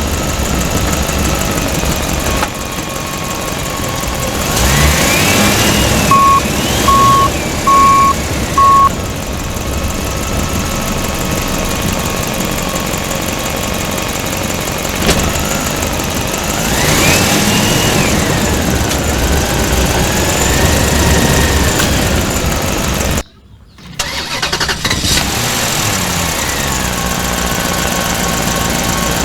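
Electronic engine sound effects from a battery-operated toy vehicle: a steady running hum with two revving sweeps that rise and fall, and four short beeps in a row a few seconds in.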